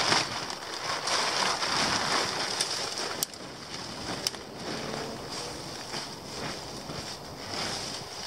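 Rustling and crackling of dry leaf litter and fabric as a person crawls into a low tarp shelter, busiest in the first three seconds, with two sharp clicks a little after the three- and four-second marks.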